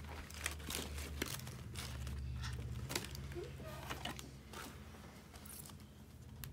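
Cardboard packaging and paper filler being handled: irregular rustling and crinkling with light clicks and taps as an eyeshadow palette is taken from its cardboard box, over a steady low hum.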